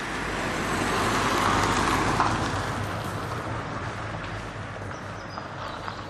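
A motor vehicle driving past, its engine and tyre noise swelling to a peak about two seconds in and then fading away.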